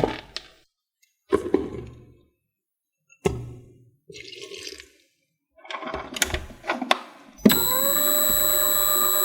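Several short separate knocks and scrapes of kitchen handling, then about seven seconds in a small electric motor starts with a brief rising whine and runs steadily, as a blender or food processor does.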